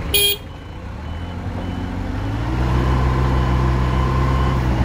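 Forklift engine revving up about two seconds in and holding steady as the hydraulic mast lifts a pallet of loaded steel drums, with a steady whine over it. A short, loud, sharp noise comes right at the start.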